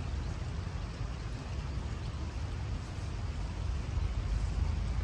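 Riverside ambience: a steady hiss of shallow river water over a low, uneven rumble that grows louder about four seconds in.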